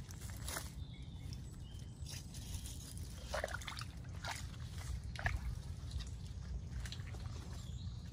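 Wet mangrove mud squelching and slopping in several short bursts, the strongest about three and a half seconds in, over a steady low rumble.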